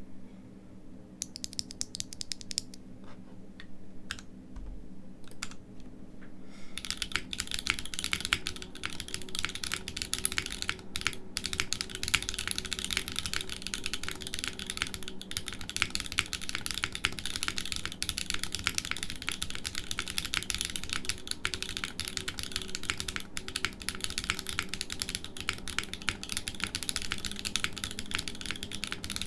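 Typing on a mechanical keyboard: Kailh x YIGIIX Calligraphy linear switches, factory-lubed, in a foamless aluminium Neo65cu with GMK keycaps. A few scattered keystrokes at first, then fast continuous typing from about seven seconds in.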